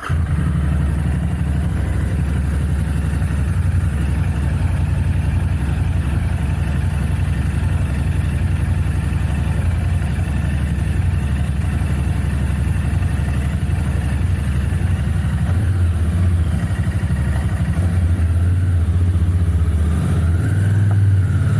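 Royal Enfield Continental GT 650's parallel-twin engine on its stock exhaust, catching at the very start and then idling steadily. The low idle note shifts slightly about 15 seconds in.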